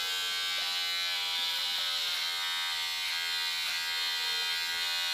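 Unix electric hair clipper buzzing steadily, running on its bare blade with no guard comb, its pitch dipping briefly a few times.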